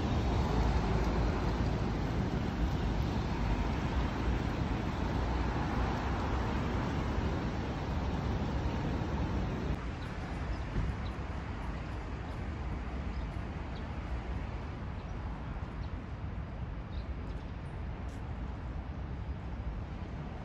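Steady city road traffic noise, a low even rush of passing vehicles. It drops to a quieter level about ten seconds in.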